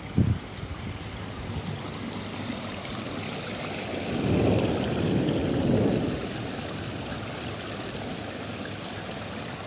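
Water splashing and bubbling from a row of small fountain jets in a long stone trough: a steady rush that swells louder for a couple of seconds near the middle. A short thump right at the start.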